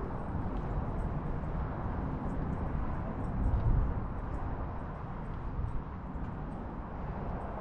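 Steady low outdoor rumble, swelling briefly about three and a half seconds in.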